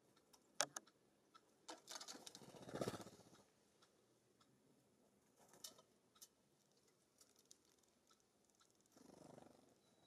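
Small birds working the wire-cage feeders: sharp taps and clicks of beak and claws on the metal mesh, and about two seconds in a louder flutter of wings as a bird takes off. A softer flutter follows near the end.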